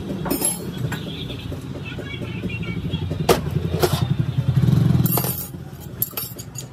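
An engine running with a pulsing low rumble that swells about four and a half seconds in and fades about a second later, with several sharp knocks at irregular moments.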